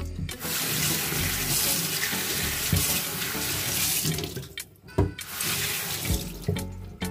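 Tap water running and splashing into a stainless steel sink as raw chicken is rinsed under it. The flow eases off briefly after about four seconds, a single sharp knock sounds about five seconds in, and then the water runs again.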